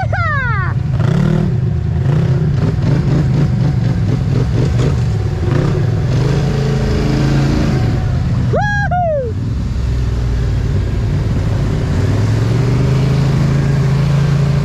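Polaris ATV engine running steadily under way, its pitch lifting a little past two-thirds of the way through. Two brief falling tones sweep down, once at the start and again past halfway.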